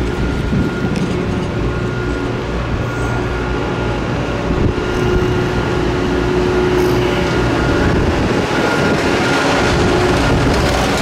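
Chairlift machinery running at the top terminal: the haul rope rolling over the sheave wheels and bullwheel, making a steady rumble with a faint high whine.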